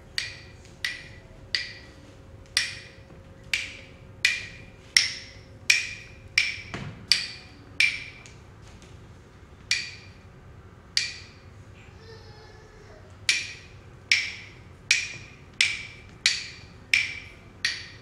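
Wood block struck in a slow, uneven beat of sharp, hollow knocks, about one and a half a second, with a couple of short pauses.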